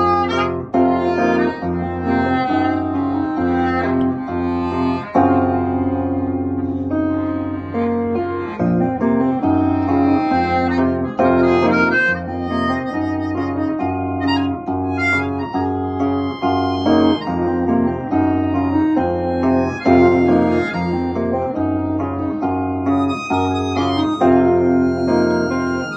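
Melodica (keyboard harmonica) playing a held melody over a Chapman Stick, whose tapped strings give a bass line of repeated notes with chords above.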